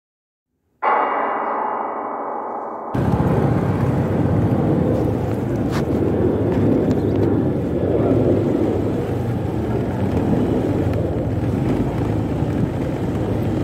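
A ringing, gong-like intro sound effect that fades over about two seconds, then a Honda motorbike riding along a street: steady engine hum with road and wind noise.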